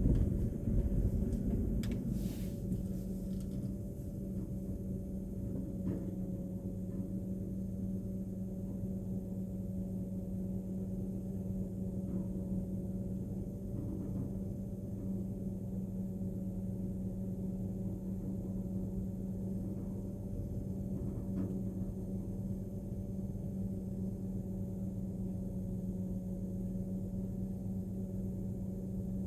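Steady hum of a vehicle heard from inside, with a constant low drone. A louder rumble dies away over the first few seconds, then the hum holds even, with a few faint clicks.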